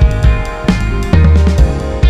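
Background music with a drum kit beat and guitar.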